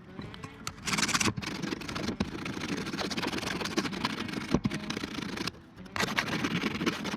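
A handheld power tool working a piece of checker plate. It starts about a second in, runs steadily with a few sharp clicks, stops for a moment near the end, then starts again.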